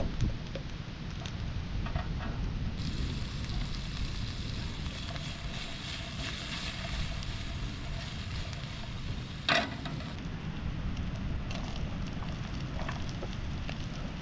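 Wood fire crackling, with wind rumbling on the microphone and one sharp pop about nine and a half seconds in.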